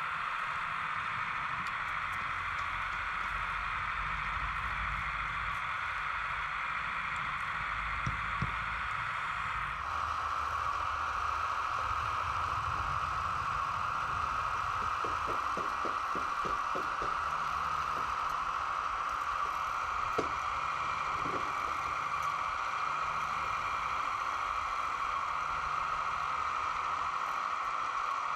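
Hydraulic pump of a radio-controlled model Kubota mini excavator whining steadily as the arm and bucket work, with a few light clicks from the bucket in loose soil partway through.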